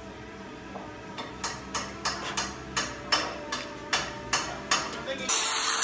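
About a dozen sharp metallic taps on hand-held metal parts, roughly two to three a second. Just before the end an angle grinder's steady hissing noise cuts in abruptly and is louder than the taps.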